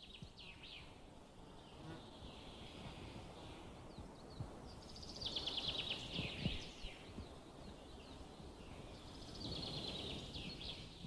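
Faint forest ambience with distant songbirds: short trills of quick falling notes, the clearest about halfway through and another near the end.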